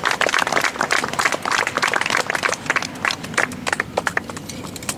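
Small audience applauding, the claps thinning out and dying away toward the end.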